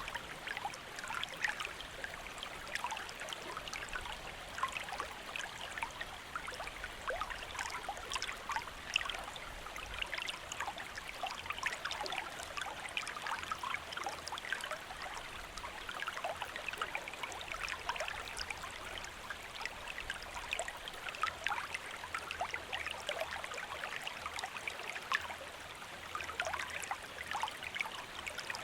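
Shallow stream flowing steadily, with a constant busy trickle and many small splashes and gurgles.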